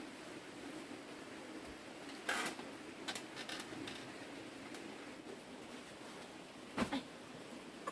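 Quiet background with light handling noises: a brief plastic rustle about two seconds in, a few soft knocks, and a short thump near the end as things are put down.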